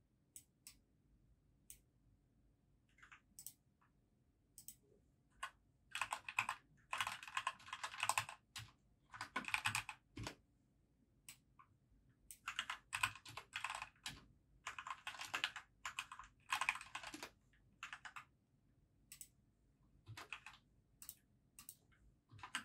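Typing on a compact keyboard. Single key presses come scattered for the first several seconds, then four runs of fast typing of one to two and a half seconds each, then occasional key presses again near the end.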